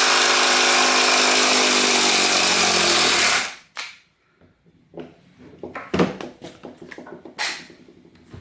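Older Makita 10.8 V cordless impact driver hammering steadily as it backs a long screw out of wood, stopping abruptly about three and a half seconds in. Light clicks and knocks of handling follow.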